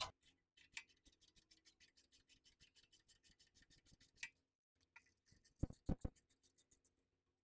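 Socket ratchet clicking fast and evenly, about six clicks a second, as a 6 mm bolt is turned out, with a pause and two or three louder knocks of the tool partway through before the clicking resumes.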